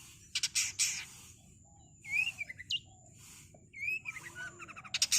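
Long-tailed shrike (cendet) singing a fast, varied song: short upslurred whistles mixed with loud harsh rattling rolls, one about half a second in and another near the end. A faint steady high-pitched tone runs underneath.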